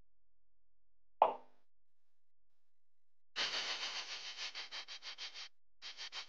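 Cartoon sound effects: one short, sharp plop about a second in, then a quick patter of soft noisy pulses, about five or six a second, that fades away and starts again briefly near the end.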